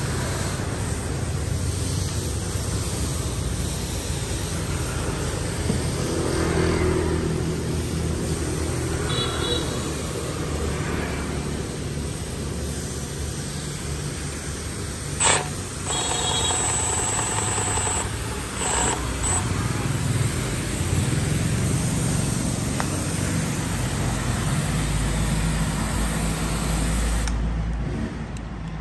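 Steady hum of road traffic, with a single sharp click about fifteen seconds in.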